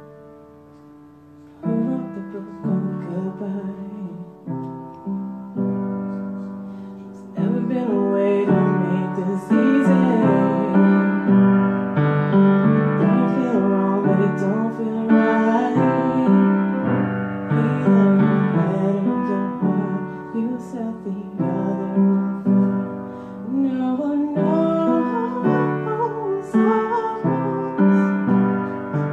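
Upright acoustic piano played in chords, starting softly and growing louder and fuller about seven seconds in.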